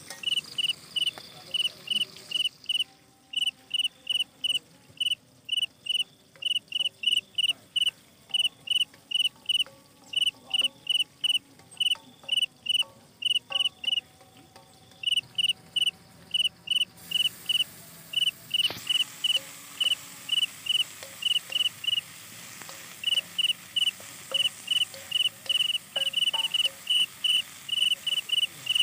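A cricket chirping: a steady run of short, high chirps, about two or three a second, breaking off briefly a few times.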